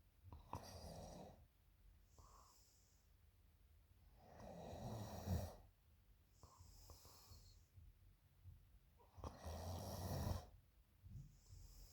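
A woman snoring in her sleep: three snoring breaths about four to five seconds apart, the loudest about halfway through and near the end, with softer breathing hiss between them.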